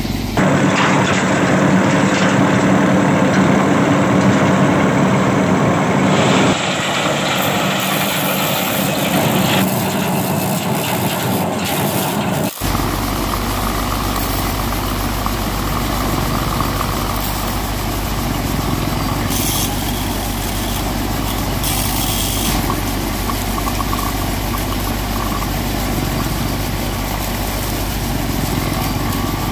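Miniature homemade thresher machine running steadily as it threshes seed pods. Its whirring mechanical sound changes abruptly about 6 and 12 seconds in, settling into a steady low hum.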